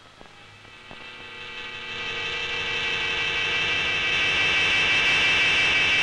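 A swelling, whirring soundtrack effect with a cluster of high held tones, rising from quiet over the first three seconds and then holding loud and steady.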